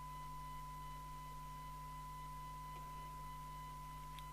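Steady test tone from a signal generator, received and played through the Harry Moss PT325 CB radio's speaker, over a low mains hum; a faint click near the end.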